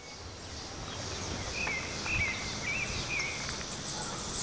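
Outdoor garden ambience fading in: a steady high drone of insects with a few short, warbling bird calls through the middle, over a low background rumble.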